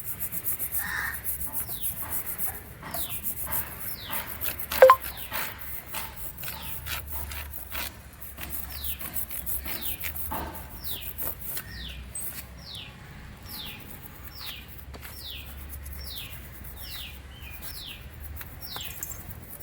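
An old toothbrush scrubbing a diesel-soaked motorcycle drive chain in short back-and-forth strokes, with a sharp click about five seconds in. A bird chirps over it, a run of short falling notes repeated about twice a second in the second half.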